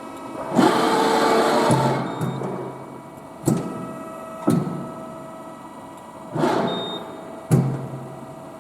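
Amada RGM2 5020AT hydraulic press brake running: a steady pump hum, a rush of hydraulic noise for about a second and a half as the ram cycles, and several sharp clunks from the machine.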